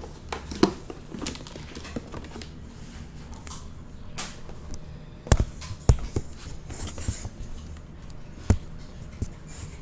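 Handling noise from a phone being moved and set in place: scattered small clicks, taps and rustles, with sharp knocks about five and six seconds in and another near the end.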